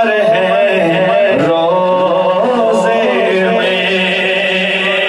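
A man singing a naat, an Urdu devotional poem, unaccompanied into a microphone, his voice sliding and bending through long held notes over a steady low hum.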